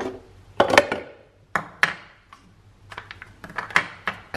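Hard plastic clicks and knocks, a string of them, as the capsule holder of a De'Longhi Nescafé Dolce Gusto coffee machine is pulled out of the machine and set down on the counter with its capsule inside.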